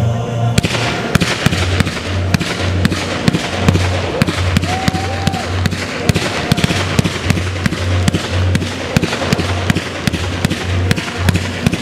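Fireworks display firing a dense barrage: rapid bangs and crackle from many shells and comets going off at once, several reports a second. It starts about half a second in, as the music playing before it gives way.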